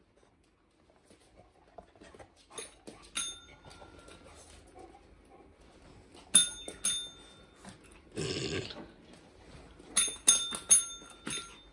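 A tap-top pet training bell pressed by dogs, giving bright metallic dings: one about three seconds in, two close together around six seconds, and a quick run of about five near the end. One short dog bark sounds in between.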